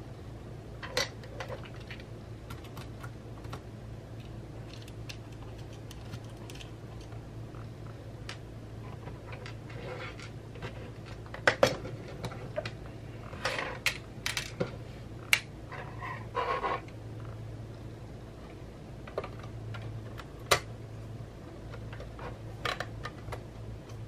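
Hands working inside an opened mid-2011 Mac mini: scattered sharp clicks and clinks of small metal and plastic parts, with a few short scrapes, as the perforated grille and nearby parts are worked loose. A low steady hum runs underneath.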